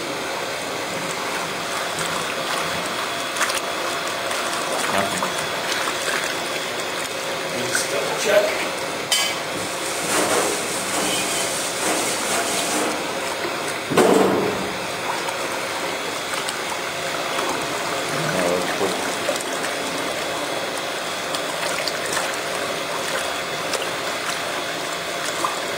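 Quadro Ytron Jet Mixer running in a stainless steel tank, churning water and granulated sugar with a steady hum under the rush of liquid. A few knocks and clinks of a metal scoop against the tank, the loudest about halfway through.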